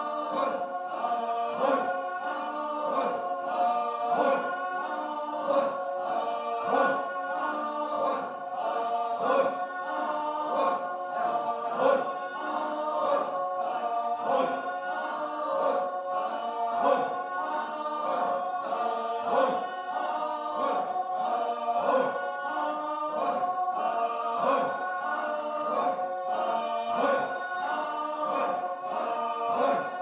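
Background music: a choir singing in several parts over a steady beat.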